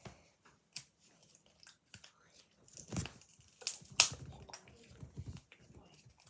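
Toy packaging being pulled and worked open by hand: scattered rustles and small clicks, with two sharper cracks about three and four seconds in.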